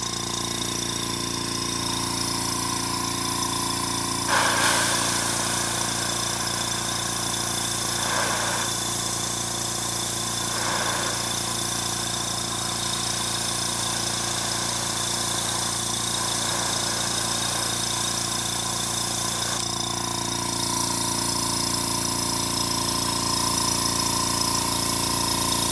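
Small airbrush compressor running with a steady hum. From about four seconds in to about twenty seconds in, the hiss of the airbrush spraying acrylic paint at low pressure, about 20 PSI, rides on top.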